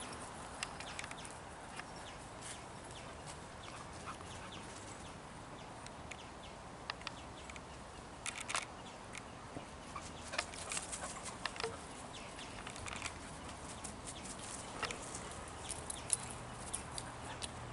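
Faint outdoor ambience with many short, scattered clicks and ticks over a low steady background, and a few brief faint calls.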